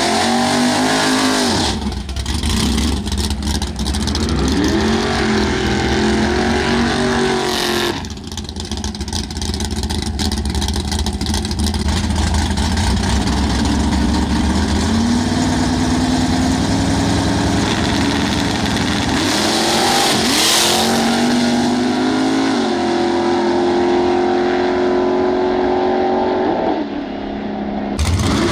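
Two drag race cars' engines revving at the start line, then launching and pulling hard down the strip, the engine pitch climbing in steps through the gear changes.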